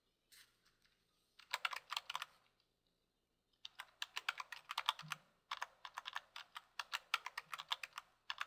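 Computer keyboard typing: a short run of keystrokes, a pause of about a second, then a longer steady run of quick keystrokes.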